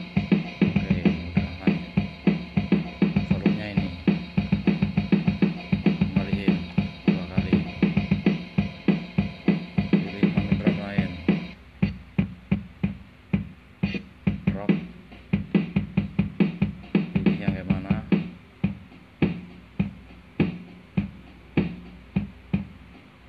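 The built-in drum machine of a NUX MG100 guitar multi-effects pedal playing a steady drum-kit beat over a sustained low tone. About eleven and a half seconds in, the pattern switches to a sparser, thinner beat.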